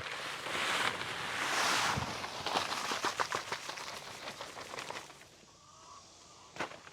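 Dry concrete mix pouring out of a bag into a post hole: a gritty hiss, then a rattle of small gravel pieces that dies away about five seconds in.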